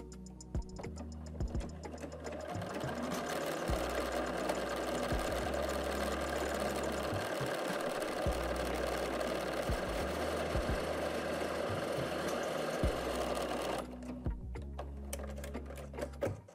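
Bernina 770 QE computerised sewing machine stitching a decorative leaf-pattern stitch through cotton. It runs steadily for about twelve seconds, then stops abruptly.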